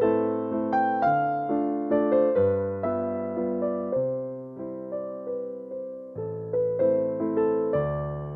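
Background music: a gentle piano-style keyboard tune, each note or chord struck and then fading, a new one roughly every half second.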